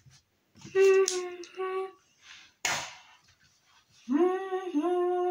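A boy singing or humming wordless held notes: a short phrase of three held notes about a second in, then a longer held note that wavers slightly from about four seconds in. Between them comes a brief hissy burst.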